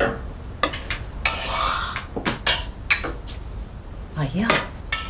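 Tableware at a meal: bowls, spoons and chopsticks knocking against dishes in a series of short, sharp clinks, with a brief scraping sound about a second and a half in.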